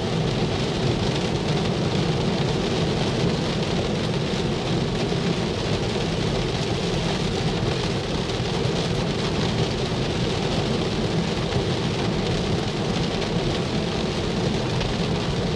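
Steady heavy rain on a Tesla Model 3, heard from inside the cabin as an even, unbroken noise that the driver calls pretty loud.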